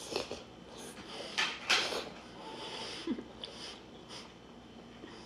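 A person eating birria tacos close to the microphone: wet biting and chewing sounds in irregular bursts, the loudest a little over a second in.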